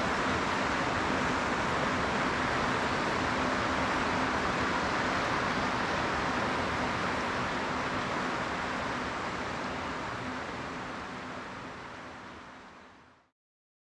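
Steady rushing of river water, fading out over the last few seconds to silence.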